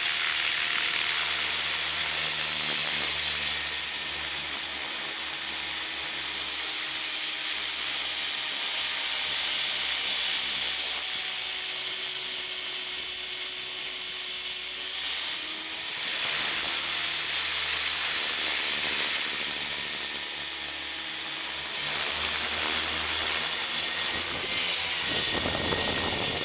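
Walkera V450D03 electric RC helicopter in flight, heard from a camera mounted on the airframe: a steady high whine from the brushless motor and rotor head. The pitch sags slowly in the middle, climbs back sharply about halfway through, and wavers briefly near the end as the throttle changes.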